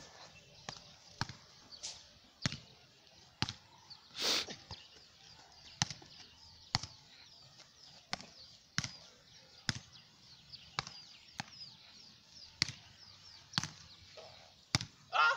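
A football being headed and kicked back and forth, each touch a sharp thud, about one a second.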